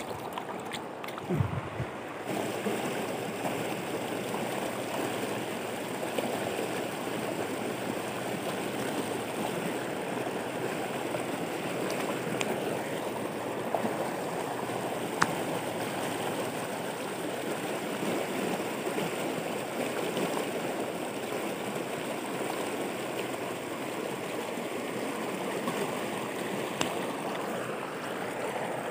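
Steady rush of a fast river flowing over rapids and rocks, with a few faint clicks. Near the start, a short splash as a small fish is let back into the shallows by hand.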